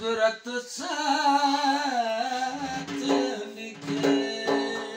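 A man singing a slow folk melody, holding long notes that bend and waver in pitch.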